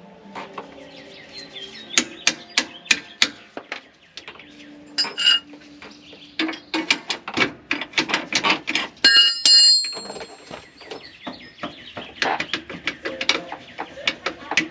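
Irregular metal clinks and clicks of hand tools and hardware at a van's rear shock lower mount on the axle, with a ringing metallic clink about nine seconds in.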